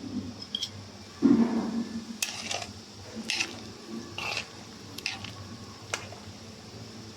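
Kitchen cooking sounds: several sharp clicks and knocks of utensils and cookware, with a louder handling noise about a second in, over a steady low hum.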